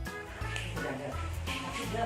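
Background music with a repeating bass line.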